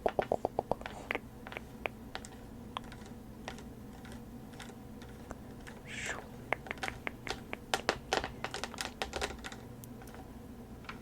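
Light, crisp clicks and taps with no speech. There is a quick run of about ten clicks at the start, scattered taps, then a short swish about six seconds in followed by another cluster of clicks.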